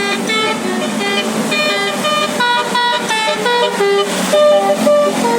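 Bus telolet horn of the basuri type playing a melody: a quick run of short notes that step up and down in pitch.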